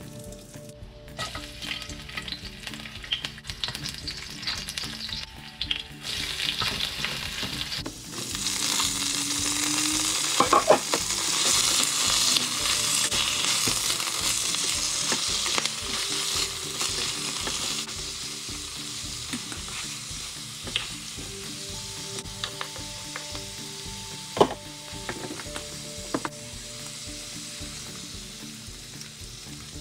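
Bok choy sizzling and being stir-fried in hot oil in a wok, the hiss getting louder about eight seconds in as the greens hit the pan and easing off later. The spatula knocks sharply on the wok a couple of times.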